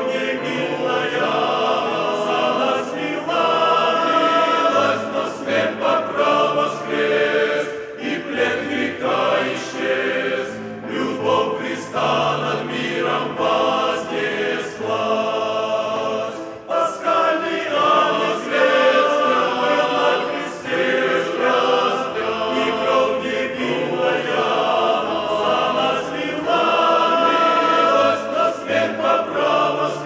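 Men's choir singing a Russian-language hymn in full harmony, phrase after phrase, with a brief break about halfway.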